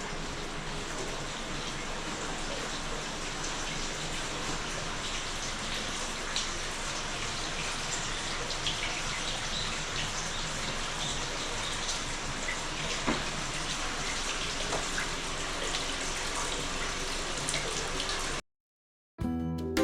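Water splashing and running steadily, with scattered drips. It cuts off suddenly near the end.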